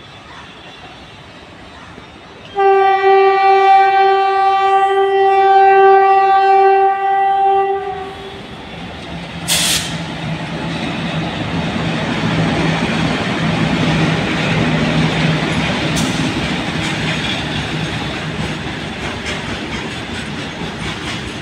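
Indian Railways WAG-9 electric freight locomotives sound one long, steady horn blast of about five seconds. Then the locomotives and their loaded goods wagons pass close by: rumble and wheel clatter over a steady low hum, with two sharp knocks.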